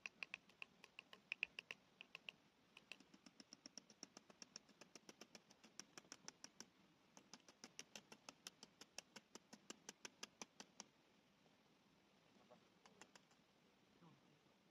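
A rapid series of faint, sharp clicks or taps, about four or five a second, the first ones with a slight ring, stopping about eleven seconds in.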